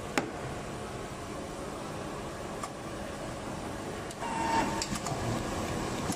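Richpeace automatic template sewing machine starting its cycle, over a steady mechanical background hum. A sharp click comes just after the start. From about four seconds in, the machine's motors start up with a few clicks, just before it begins stitching.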